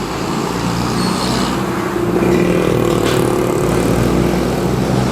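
A motor vehicle's engine running steadily, getting louder about two seconds in, amid street traffic noise.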